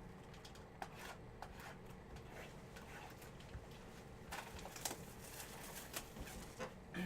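Faint rustling and light clicks from card boxes and their plastic wrapping being handled and torn open, busiest about four to five seconds in.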